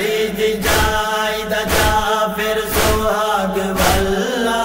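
A voice chanting a noha, a Shia lament, holding and bending long notes between lines, over a sharp percussive beat about once a second.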